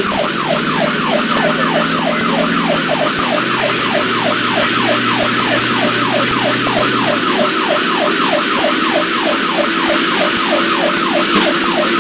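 Emergency vehicle siren in fast yelp mode: a rapid rising-and-falling wail, about three cycles a second, that cuts off near the end. A steady low hum runs underneath.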